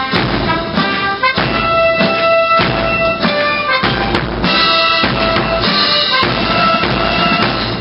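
Military band music: brass playing held chords over drums. It stops at the very end.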